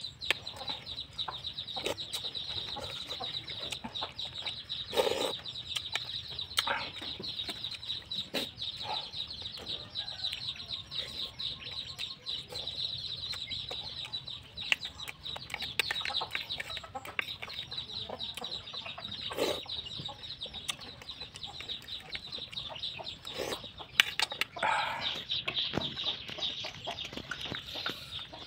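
Eating sounds, chewing and lip-smacking with a few sharp clicks, over a steady high-pitched buzzing outdoor background with a fast flutter.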